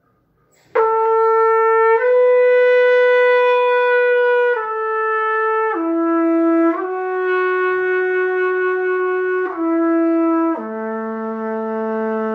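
Trumpet in second position (second valve down), starting on B and slurring smoothly, with no breaks, up and down between the natural notes of that valve setting in a slow lip-flexibility exercise. About seven unmetered held notes begin a little under a second in, ending on a long low note from about ten and a half seconds.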